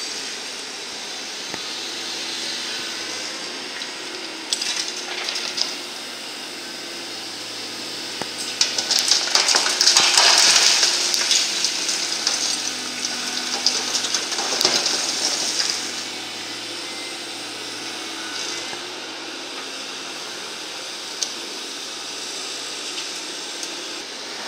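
Concrete demolition rubble tipped from a hydraulic excavator's bucket into a dump truck's bed: a long clattering rush of debris starting about a third of the way in and lasting some seven seconds, with smaller clatters before it. A diesel engine runs steadily underneath.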